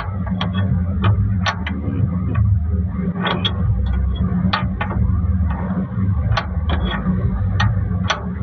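A vehicle engine running with a steady low rumble. Over it come irregular sharp metallic clinks and knocks of tools on a truck wheel during a tyre change.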